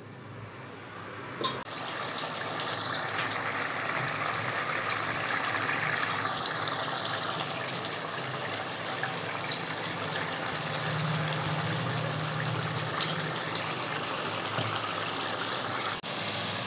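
Turkey masala gravy boiling hard in a stainless steel kadai, a steady dense bubbling and sputtering as the water cooks off toward the stage where the oil separates. It swells in after a brief click about a second and a half in.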